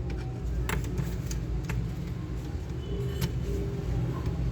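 Steady low rumble of road traffic, with a handful of sharp, separate clicks spread through it.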